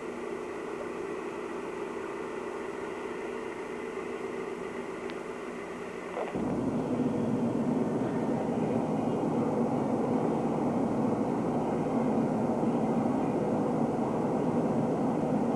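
Steady hum of a car running, then, about six seconds in, an abrupt jump to louder, fuller engine and road noise of a car on the move, which then holds steady.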